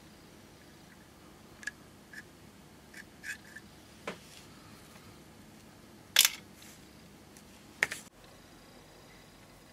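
Light metallic clicks and taps of a steel pick and small parts on a sterling silver petrol lighter being taken apart by hand, with two sharper, louder clicks near the end.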